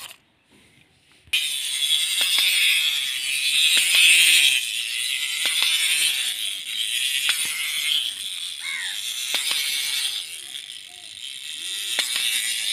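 Clockwork mechanism of a plastic wind-up walking toy running with a continuous buzzing rattle, a few sharp clicks over it. It starts suddenly about a second in.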